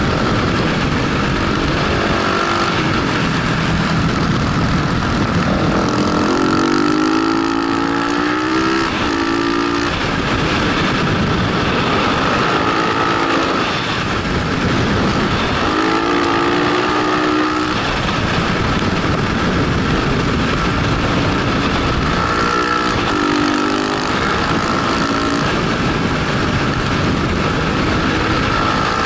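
KTM 690 SMC's single-cylinder engine heard from on board, revving up and easing off again and again as it accelerates out of bends. Heavy wind rush on the microphone runs underneath.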